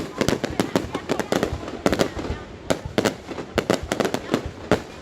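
Fireworks display, with shells bursting in a rapid, irregular run of sharp bangs, several a second.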